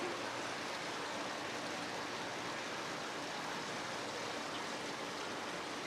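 Steady, even rushing noise of running water, with no separate events.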